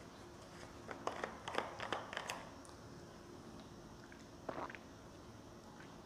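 Quiet room tone with a few faint, short clicks and taps: a cluster of them from about one to two and a half seconds in, and one more brief rustle a little past the middle.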